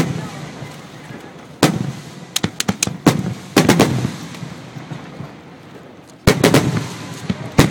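Aerial firework shells bursting overhead: a string of sharp bangs, some single and some in quick clusters, each trailing off in an echoing rumble, with a short lull before two more bangs near the end.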